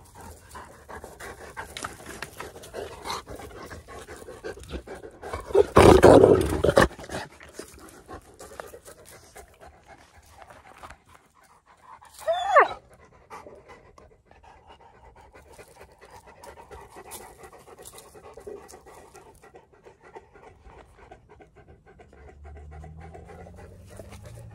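Cane Corso panting, with a loud rustling burst about six seconds in and a brief high gliding squeal about twelve seconds in.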